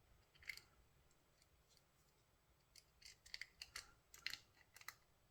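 Faint small metallic clicks of a screw being fitted and turned into a folding knife's handle with a small bit driver: a single click about half a second in, then a run of quick, irregular clicks in the second half.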